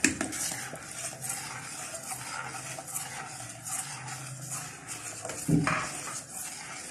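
A spoon stirring a thin, milky quinoa porridge in a large stainless steel pot: continuous swishing and scraping against the pot, after milk is poured in at the start. One louder knock on the pot about five and a half seconds in.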